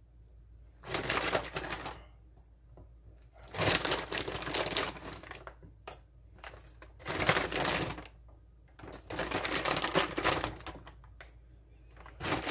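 Bursts of crinkling plastic packaging, about five in all, each around a second long, as meatballs are grabbed from their bag by hand.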